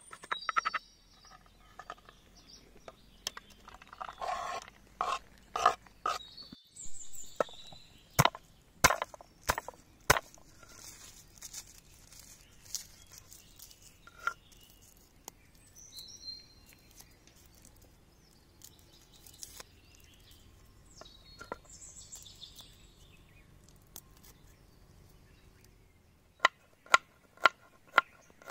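Kitchen knife striking a wooden cutting board: scattered chops of ginger early on. Near the end comes a quick run of even strikes, about two a second, as garlic cloves are sliced. Birds chirp briefly in between, over a quiet stretch while garlic is peeled.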